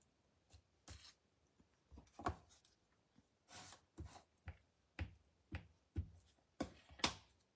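An ink pad dabbed repeatedly onto a clear rubber stamp held on an acrylic block, making a series of light, uneven taps about two a second to ink the stamp.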